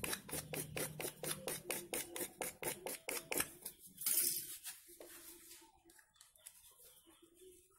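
Rapid rasping strokes of a blade scoring the surface of a PVC pipe to roughen it so the glue will grip, about five strokes a second, stopping about three and a half seconds in. A short hiss follows, then faint handling of plastic pipe.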